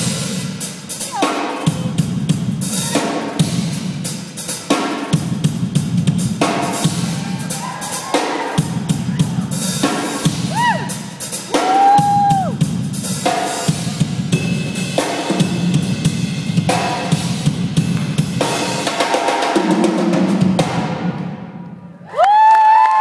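Live acoustic drum kit played fast and hard, a dense run of snare, bass drum and cymbal strikes that dies away near the end. Audience whoops and cheers break out just as the drumming stops.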